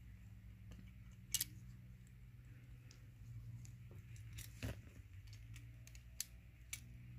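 A few small, sharp clicks and taps as the die-cast metal body and plastic base of a toy car are handled and fitted together, the sharpest about a second and a half in, over a steady low hum.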